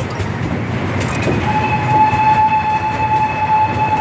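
Train horn blown in one long steady blast that starts about a second in and holds one note, over a constant low vehicle rumble.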